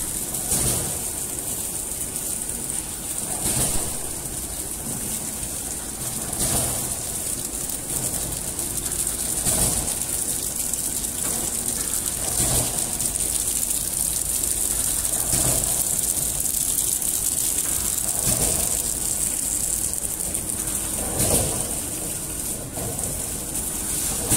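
Horizontal flow wrapping machine running: a steady hiss with a heavier beat about every three seconds from its repeating wrapping cycle.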